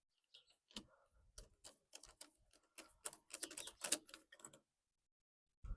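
Faint metal clicks and taps as a motorcycle bar end weight is fitted back into the handlebar end and tightened with a hand tool. The clicks come in a quick cluster about three to four seconds in, and a duller knock follows near the end.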